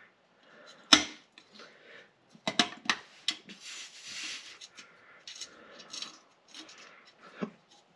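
Scattered small metal clicks and scraping as a nut and copper washer are worked by hand at the oil strainer cover plate under a VW Beetle's engine.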